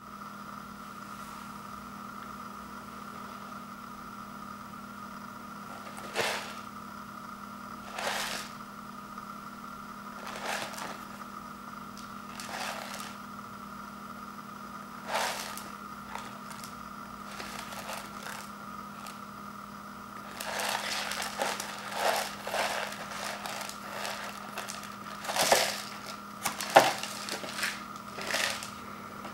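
Instant ramen bowl being handled and turned in the hands, its packaging crinkling and scraping in short scattered bursts that come more often in the second half, over a steady background hum.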